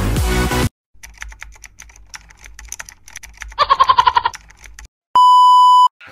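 Electronic dance music cuts off abruptly under a second in. It is followed by a typing sound effect, a run of sharp keyboard-like clicks, with a rapid pulsing beep partway through. About five seconds in comes a loud, steady, high bleep tone lasting under a second.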